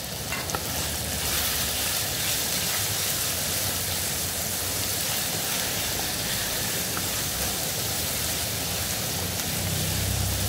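Ginger and green chilli paste sizzling in hot oil in a pan: a steady frying hiss that swells a little about a second in, with a few light clicks near the start.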